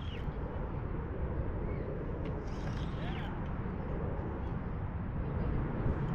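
Steady low rumble of wind on the shore, with a few short bird calls about two and a half to three seconds in.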